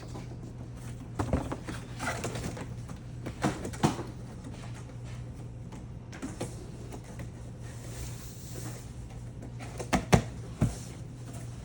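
Cardboard display parts being folded and handled: scattered soft knocks and scrapes, with a cluster of louder knocks near the end, over a steady low hum.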